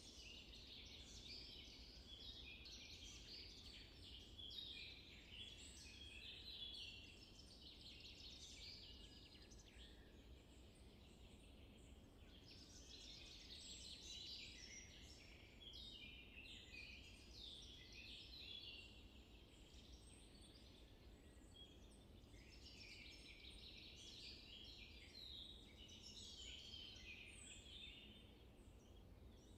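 Faint chorus of small birds chirping and singing, busy stretches of quick high notes rising and falling in waves, over a faint steady low rumble.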